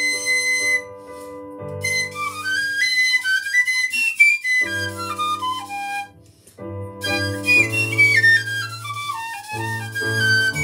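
Piccolo playing quick runs of notes that climb and then fall, held notes at either end, over an accompaniment of sustained low chords. The piccolo stops for about a second in the middle.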